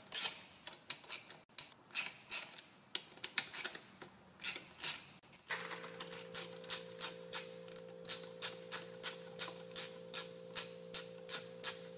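Ratcheting driver clicking as the 10 mm screws on a Harley-Davidson big-twin clutch pressure plate are backed out. The clicks come irregularly at first, then settle into an even run of about three a second. A steady low hum comes in about halfway through.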